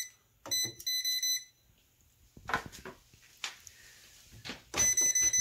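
Non-contact voltage tester beeping in two bursts of rapid high chirps, about half a second in and again near the end, as its tip passes over live parts of the breaker panel, signalling energized metal. A few soft knocks fall in between.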